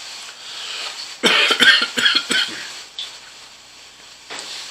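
A man coughing, a quick run of short coughs about a second in, over a steady low hiss.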